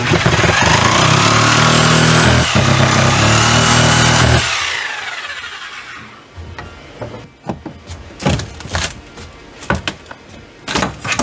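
Corded reciprocating saw cutting into wall framing for about four and a half seconds, with a squeal that rises and falls over its running hum; it then winds down. After that come scattered knocks and cracks of wood being worked loose.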